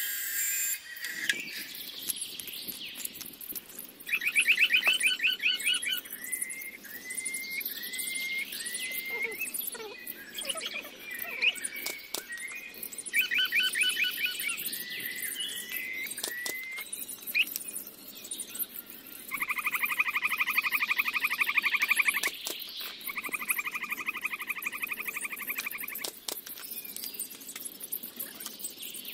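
Birds calling: short fast trills and runs of quick rising chirps, then two longer steady trills in the second half. A few light knocks sound between the calls.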